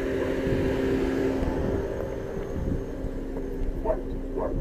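Steady hum of an idling car, holding a few even tones without change.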